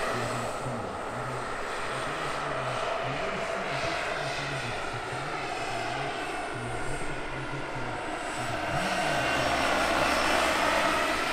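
Turbine-powered scale model Eurocopter H145 helicopter in flight, its turbine and rotor running steadily. The sound grows louder from about eight seconds in as the model flies closer.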